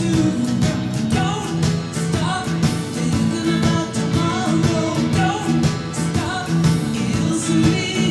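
A pop-rock song with singing over a steady drum beat.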